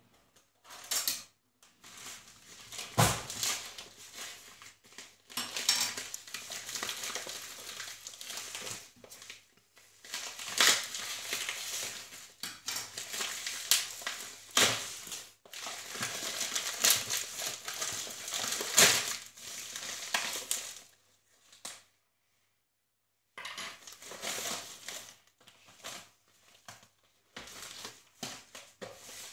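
Plastic mailer bag crinkling and tearing as it is ripped open by hand, in irregular rustles and sharp crackles. After a pause of about two seconds near the end it turns to quieter rustling.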